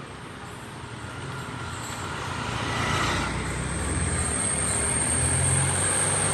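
Motor scooter engine approaching and passing close by. It grows louder over the first three seconds and stays loud as it goes past.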